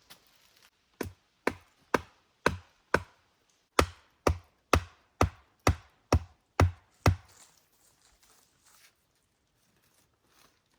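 Wood being struck hard about a dozen times, roughly two knocks a second with a short pause partway through, as wooden pieces are driven in for a shelter wall.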